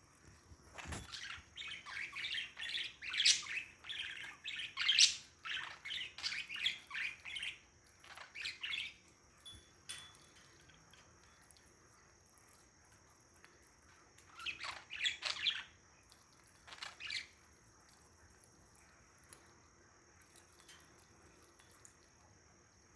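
Pet parrots (a budgie and cockatiels) chirping in quick, busy bursts, loudest near the start and again around the middle, then only faint scattered ticks. A faint steady high-pitched whine runs underneath.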